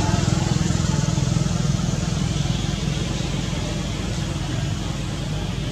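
A motor vehicle engine running steadily nearby, a low rumble with a hiss over it that eases slightly toward the end.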